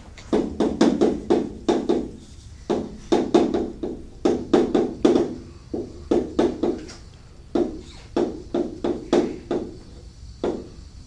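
Chalk writing on a blackboard: quick runs of sharp taps as each symbol is written, with short pauses between the runs.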